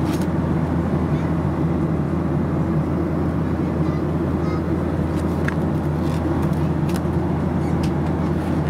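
Steady cabin noise of a Boeing 737-800 in flight: an unchanging roar of airflow and CFM56 engines, heaviest in the low range, with a few faint ticks in the second half.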